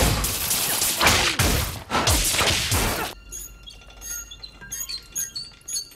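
Film sound effects: heavy crashing and crumbling of stone with falling swooshes for about three seconds, which cut off suddenly. Then comes the quieter tinkling and clinking of glass chandelier crystals as a chandelier is unscrewed.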